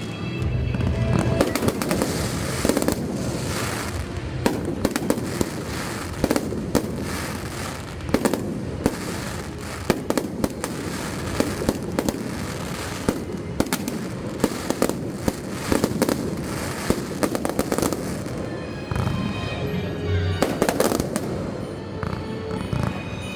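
Fireworks display bursting in a continuous barrage of bangs and crackles, several sharp reports a second over a rumbling bed.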